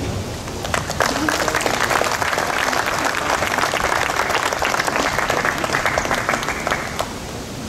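Audience applauding, the clapping starting about a second in and dying away near the end.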